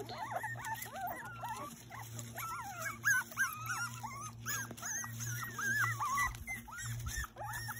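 Several very young puppies whining together: many short, high-pitched calls that rise and fall, overlapping one after another.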